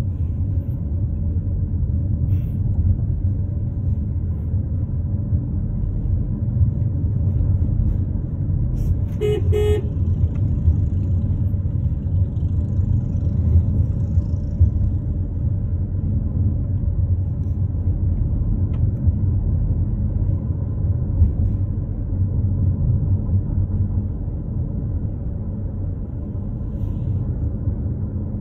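Steady low road and engine rumble heard from inside a moving car's cabin, with a short car-horn toot about nine seconds in.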